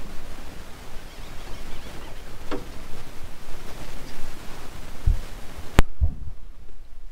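Steady wind noise buffeting the microphone on an open boat at sea, with two dull low thumps about five and six seconds in and a sharp click just before six seconds, after which the noise is much quieter.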